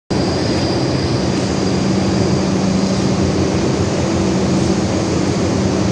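Steady mechanical hum and rumble of a New York subway train standing at the station, with a low humming tone throughout and no change in loudness.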